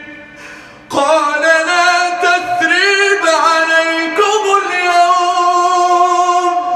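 Male voice chanting Quran recitation in melodic tajweed style. After a short breath about a second in, he draws out one long ornamented phrase with sliding turns in pitch, settling on a held note that tails off near the end.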